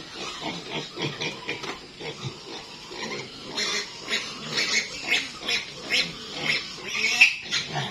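Piglet squealing repeatedly while restrained for an ivermectin deworming injection. The squeals come about twice a second from about three and a half seconds in, and are loudest near the end.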